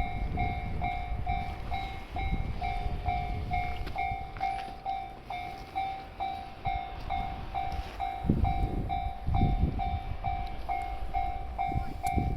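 Japanese level crossing alarm dinging in a steady rapid rhythm over the low rumble of a passing freight train.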